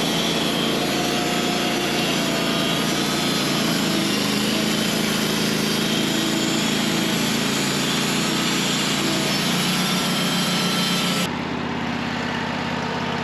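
Engine-driven sawmill running steadily while its blade cuts through a honey locust log. About eleven seconds in, the high cutting noise stops suddenly and the engine keeps running more quietly.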